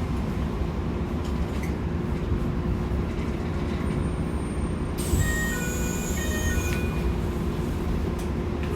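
Keikyu New 1000 series car running, heard from inside: a steady rumble of wheels on rail with a low hum. About five seconds in, a hiss with several high steady tones and a falling high whistle sounds for under two seconds, then stops.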